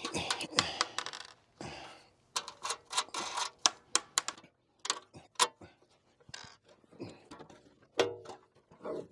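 Nuts and bolts being taken off a pea sheller's metal frame by hand: irregular metallic clicks and clinks with short scraping sounds.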